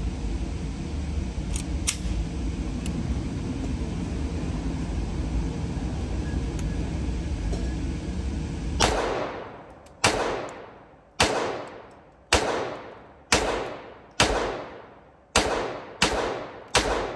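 Handgun fired nine times in an indoor range, about one shot a second, each crack ringing off in the room. Before the first shot there is a steady low background rumble, which drops away once the shooting starts.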